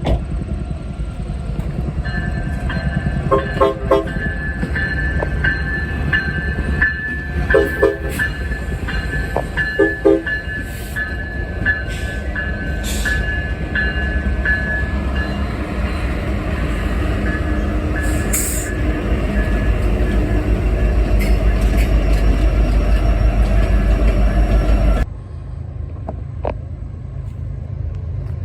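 A train horn sounding short blasts in pairs, three times, over the steady rumble of a passing train. A high ringing repeats about twice a second through the first half. Near the end the sound drops abruptly quieter.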